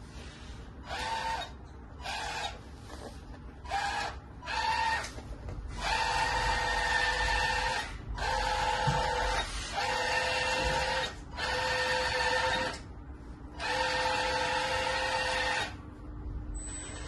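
Hydraulic pump of an MT Model EC380 1/14-scale metal RC hydraulic excavator whining in repeated bursts of half a second to two seconds, starting and stopping as the boom, arm and grab are worked. The whine holds a steady pitch while it runs, and the bursts get longer from about six seconds in.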